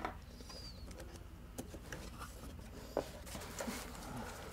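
Faint handling of a cardboard box and its foam packing as it is opened: soft rustling and a few light clicks and taps, one a little sharper about three seconds in.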